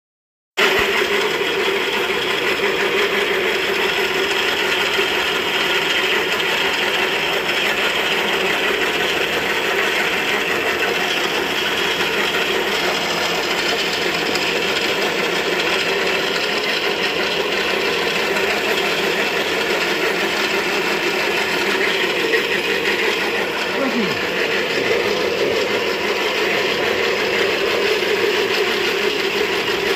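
Pellet-making machine running steadily under test, a continuous mechanical rattle over the hum of its motor, starting about half a second in.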